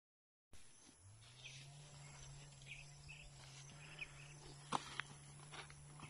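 Faint open-air rural ambience: a steady low hum under scattered faint chirps, with two sharp clicks just before five seconds in, the first the louder.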